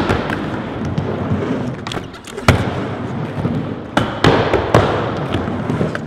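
Skateboard riding an indoor mini ramp: steady wheel rumble broken by several sharp clacks and thuds of the board, the loudest about two and a half seconds in and a cluster of them near the four-second mark.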